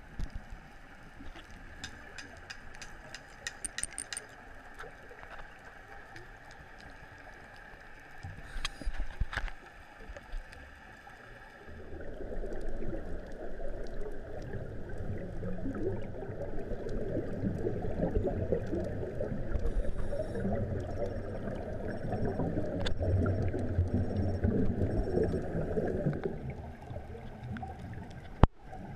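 Underwater water noise picked up by a camera under the sea: quiet with scattered clicks at first, then a low gurgling rumble from about twelve seconds in that fades around twenty-six seconds, and one sharp knock near the end.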